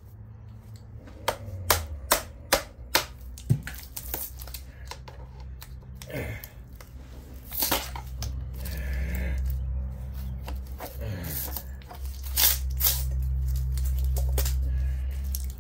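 Hand tools knocking and clinking against a transformer's thick copper windings as it is stripped. A quick run of about six sharp knocks, roughly two a second, comes in the first few seconds, with scattered clicks after that, over a steady low hum.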